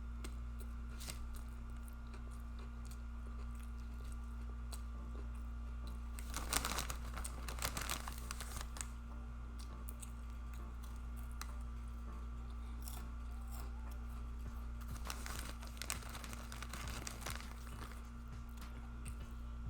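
Close-miked chewing and smacking of a chipotle chicken cheese steak sandwich, with scattered wet mouth clicks and two busier spells of crunching and smacking, about six seconds in and again around fifteen seconds in. A steady low hum runs underneath.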